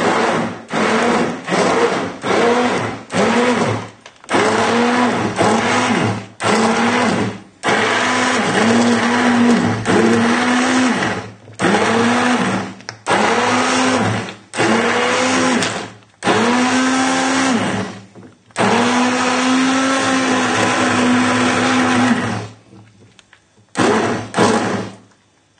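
Stick blender pulsed in a pot of thick lentil soup, its motor pitch rising as it spins up at each start. It runs in short bursts at first, then longer runs of a few seconds, stopping near the end after two brief final pulses. The soup is only partly blended, so some pieces of vegetable remain.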